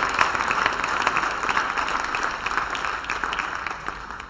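Audience applauding, dense clapping that starts to die away in the last second or so.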